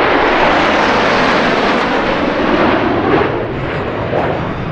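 A loud airplane passing close, its engine noise dense and steady, easing off a little about three and a half seconds in.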